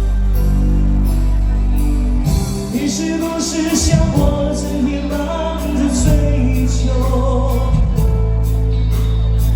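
Live pop band music in a song's instrumental passage: held bass notes, with a steady drum and cymbal beat joining about two seconds in and a sung melodic line over it.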